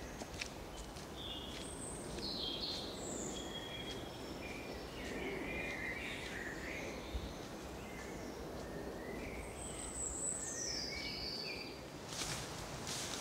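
Birds singing and calling in woodland over a steady low background noise; about twelve seconds in, footsteps start scuffing through dry leaf litter.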